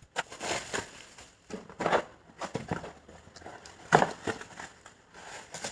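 Packaging crinkling and rustling as it is handled and unwrapped, in irregular crackles, the loudest about four seconds in.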